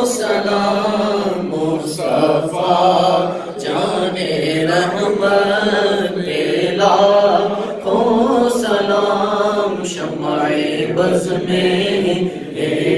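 Unaccompanied male voices chanting an Urdu salam, a devotional recitation in praise of the Prophet, through microphones. The melody runs on in long held, wavering notes with only short breaths between lines.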